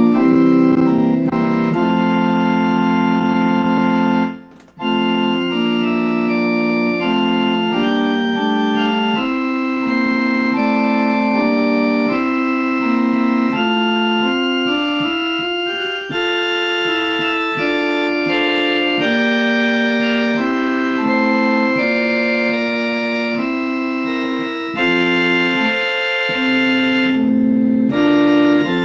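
Organ playing a hymn in sustained chords, with a short break about four and a half seconds in as one verse ends and the next begins.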